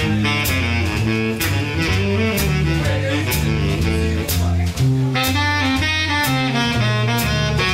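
Small jazz combo playing: baritone saxophone lines over a stepping double bass line and drums with regular cymbal strokes.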